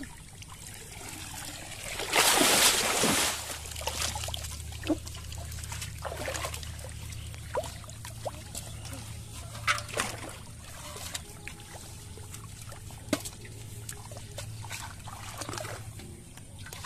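Water splashing and trickling as a cast net is hauled and gathered in shallow water. A loud splash comes about two seconds in, followed by smaller splashes, drips and short rustles of the wet net and weeds.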